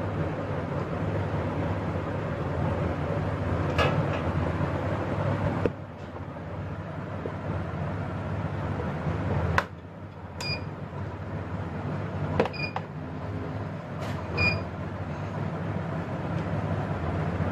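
Three short high electronic beeps about two seconds apart in the second half, from a CAMRY digital price-computing scale's indicator, over a steady low hum and hiss. A couple of sharp clicks come earlier.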